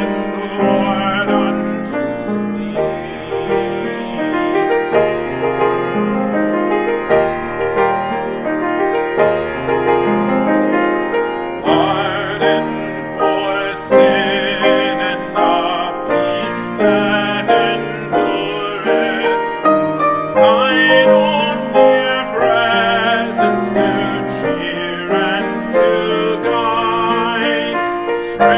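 Hymn music: piano accompaniment under a high melody line with wide vibrato.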